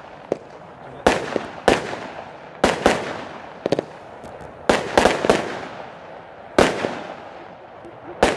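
Two 13-shot consumer fireworks cakes (Badar & Blaze Magnum) firing together: about a dozen sharp bangs at uneven intervals, some in quick pairs, each trailing off.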